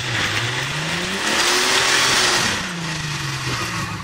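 Jeep Wrangler engine revving up hard as the Jeep climbs out of a deep dirt rut, with a loud rush of tires spinning in the dirt for about a second in the middle, then the revs drop as it falls just short of the top.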